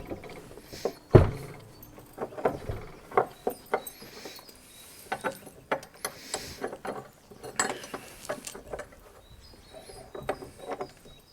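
A heavy, solid door shut with one loud thump about a second in, followed by a string of clicks and clunks from its lock and handle as it is secured.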